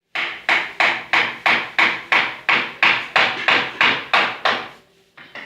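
Hammer blows on a broken chair leg being fixed: a steady run of about a dozen strikes, roughly three a second, each ringing briefly. The hammering stops near the end, followed by a lighter knock.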